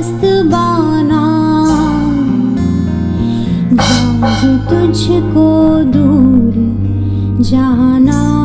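A woman singing a slow melody to a band accompaniment of strummed acoustic guitar, bass and cymbal strokes. The song is a Hindi poem set to contemporary music.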